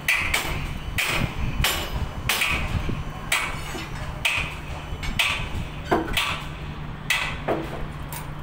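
A hammer striking steel fittings while a collar frame is fitted to a tower crane mast: sharp metallic blows about once a second, each with a short ring. A steady low hum runs underneath.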